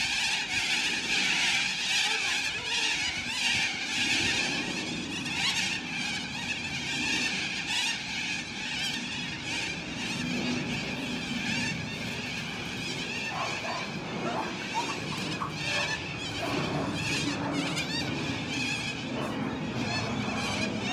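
A flock of cockatoos calling overhead: many screeches overlapping into a continuous din.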